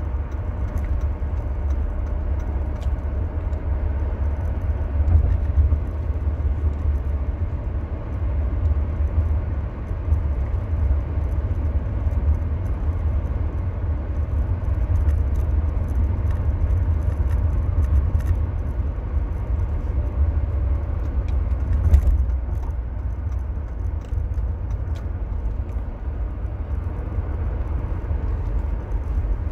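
Mercedes W124 220CE's 2.2-litre four-cylinder engine and its tyres on the road while driving at a steady pace, heard as a constant deep rumble. Small clicks and rattles come through now and then, with one sharper knock, like a bump, about two-thirds of the way in.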